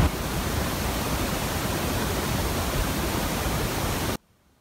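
Steady, even hiss with no distinct events, cutting off abruptly about four seconds in.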